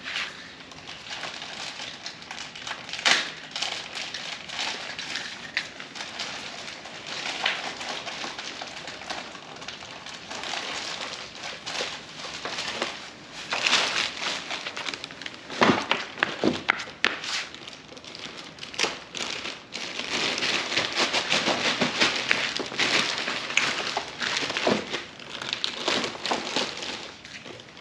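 Packaging being handled and opened: a continuous crinkling and rustling of plastic wrap and cardboard, broken by many sharp clicks and small knocks.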